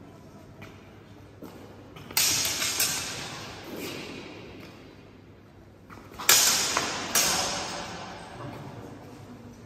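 Longsword blades clashing in sparring: a quick run of about three strikes a couple of seconds in, then two more around six and seven seconds, each ringing and echoing off the stone hall.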